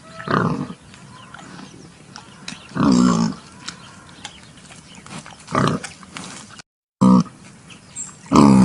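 A pig calling in five short, pitched grunts spaced a couple of seconds apart, with a brief moment of silence just before the fourth.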